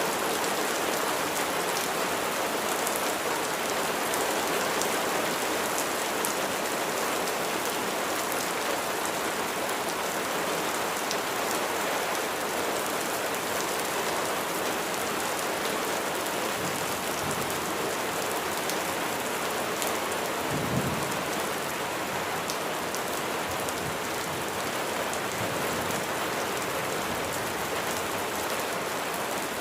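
Steady rain falling, an even hiss of many drops, with a brief low rumble about two-thirds of the way through.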